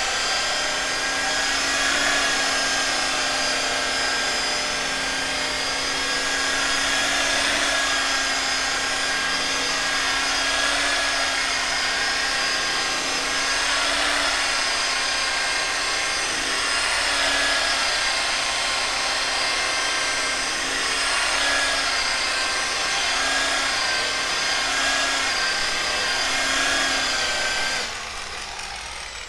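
Electric rotary polisher with a foam buffing pad running steadily as it rubs out freshly colour-sanded paint on a car bonnet with compound, its motor holding a steady pitch. It is switched off about a second before the end.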